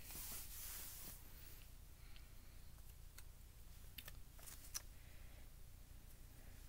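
Faint rustle in the first second, then scattered small sharp clicks and taps, several bunched about four to five seconds in, from handling small craft supplies at a desk.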